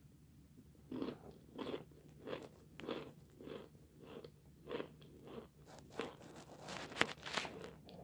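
Close-up chewing of hard white chalk, one crunch about every two-thirds of a second starting about a second in. A few sharper, crisper crunches come near the end.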